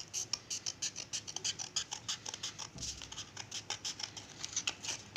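Scissors cutting through a sheet of folded, glued-double A4 paper along a curve, in a quick steady run of short snips, about four or five a second.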